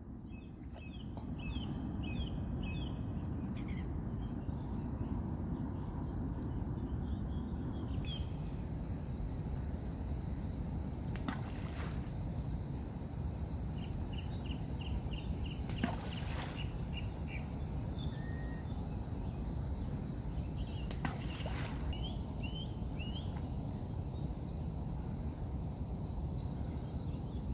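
Songbirds chirping and singing in many short, high notes over a steady low outdoor rumble, with three brief sharp sounds a few seconds apart.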